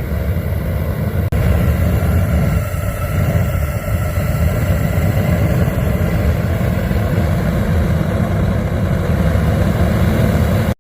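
Homemade gas forge burner, made from a clothes dryer's venturi burner tube with a flared bell on the nozzle, running with a steady low rushing flame, dipping briefly about a second in and cutting off suddenly at the end.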